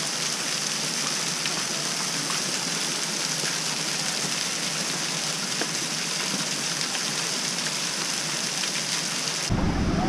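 Thin waterfalls splashing down a mossy rock face: a steady, even hiss of falling water. Near the end it cuts suddenly to a louder, deeper rush of water.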